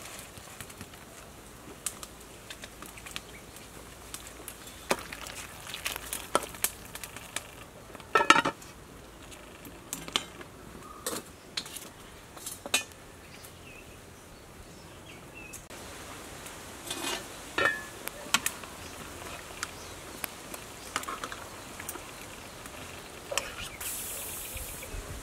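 Scattered clinks and knocks from a metal soup pot, its lid and a ladle during cooking over a wood fire, with a short hiss near the end.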